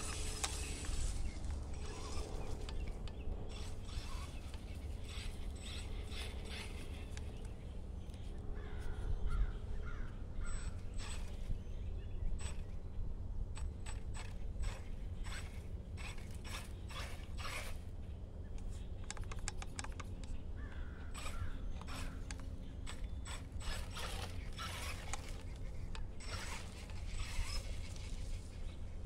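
Irregular mechanical clicking and rattling from a small mechanism, some clicks in quick runs, over a steady low rumble.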